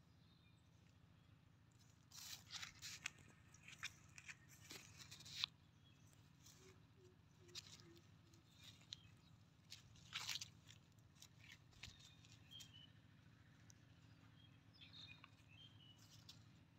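Mostly quiet, with scattered faint crunches and rustles of dry leaves, twigs and grass being stepped on and brushed through, bunched about two to five seconds in and again around ten seconds.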